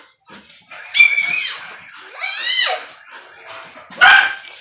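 A German Shepherd–husky mix and a corgi play-fighting: a high-pitched yelp about a second in, a whining yip that rises and falls at about two and a half seconds, and a short sharp bark near the end.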